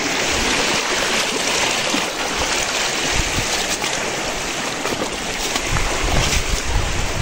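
Shallow stony river water running over pebbles and rocks, a steady rushing hiss.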